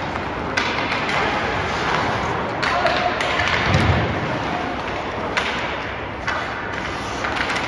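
Ice hockey play heard from the stands: a steady hiss of skating and crowd murmur, with about six sharp knocks of sticks, puck and boards spread through it.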